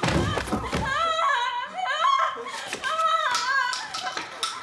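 High-pitched human screaming and wailing in repeated, wavering cries, with a couple of dull knocks in the first second.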